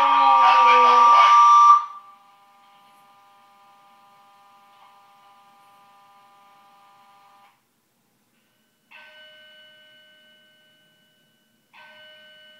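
A Siberian husky howls along with a shrill fire alarm. Both stop abruptly about two seconds in, leaving a faint steady tone that cuts off halfway through. Near the end come two chime-like tones, each ringing out and fading over a second or so.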